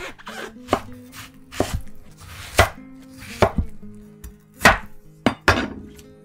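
Kitchen knife cutting through watermelon flesh onto a wooden cutting board: a series of crisp cuts, each ending in a knock on the board, roughly one a second with a few in quick pairs.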